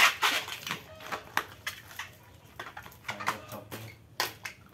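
Small clear plastic bags crinkling and crackling as they are handled, a run of irregular sharp crackles.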